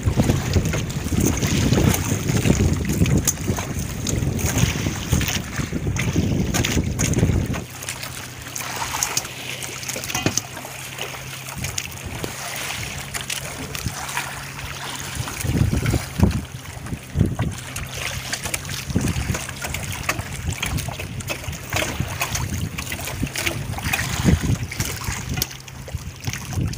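Boat engine running steadily, with wind buffeting the microphone. The wind rumble drops away about eight seconds in, leaving a steady low engine hum with a few knocks.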